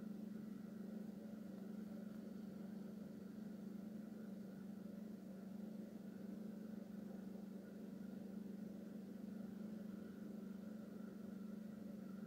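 Steady low hum with a faint higher tone above it: indoor room tone.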